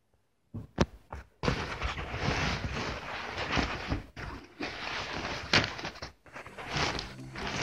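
Close rustling and handling noise from a heavy cotton gi and its plastic packaging being moved around, with a couple of sharp clicks just before it starts.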